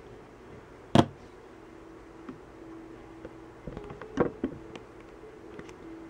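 Opened Samsung Galaxy S4 being handled and set down on a table: a sharp knock about a second in, then a few light clicks and taps around four seconds in, over a faint steady hum.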